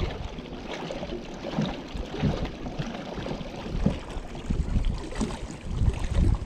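Wind buffeting the microphone in gusts, strongest near the start and again near the end, over the splash and lapping of choppy water against the boat.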